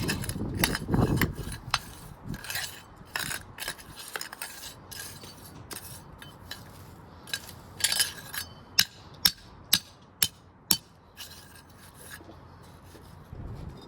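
Patio pavers scraping and clinking against each other as they are handled and laid. A little past the middle comes a run of five sharp knocks, about two a second.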